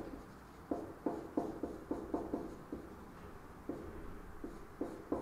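Writing on a board: a run of quick, sharp taps and short strokes, several a second, in two runs with a brief lull in the middle.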